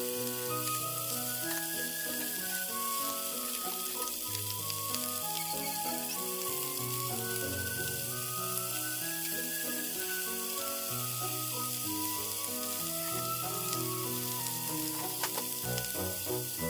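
Chicken thigh pieces sizzling steadily as they fry in oil in a nonstick frying pan, with a few light clicks near the end as pieces are turned with chopsticks. Soft background music plays underneath.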